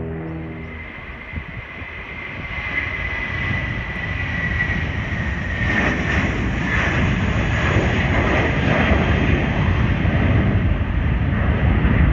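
Jetstar Airbus A320's jet engines at takeoff power as the airliner rolls and lifts off: a whine that sags slightly in pitch, under a roar that grows louder and fuller from about six seconds in.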